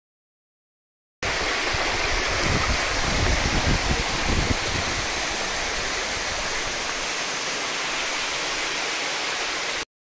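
Water from Choshi waterfall rushing and splashing over rocks in its stream, a steady hiss of flowing water. It starts abruptly about a second in, carries an uneven low rumble for the first few seconds, and cuts off just before the end.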